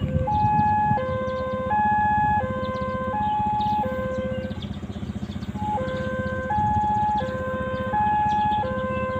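Railway level-crossing warning siren sounding a two-tone hi-lo alarm. A higher and a lower tone take turns about every three-quarters of a second, with a short break a little past the middle. A steady low rumble runs underneath.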